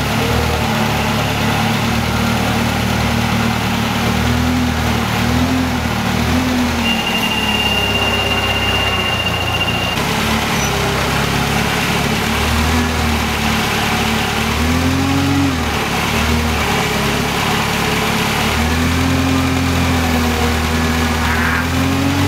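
Forklift engine running and revving up and down several times as the truck holds and positions a heavy track unit. A thin, steady high whine sounds for about three seconds about a third of the way through.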